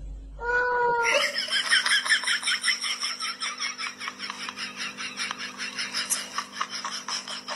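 A short pitched call about half a second in. Then rapid, evenly pulsed high-pitched giggling, about five bursts a second, runs on over a low steady hum.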